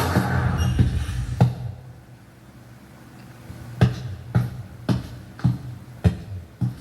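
A door-opening sound effect, loud at the start, then boot footsteps landing evenly about two a second, over a background music score with a steady low drone.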